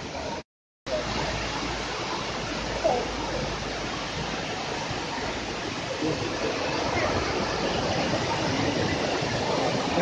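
Prenn waterfall's steady rush of falling water, with faint voices of people nearby. The sound cuts out completely for a moment about half a second in.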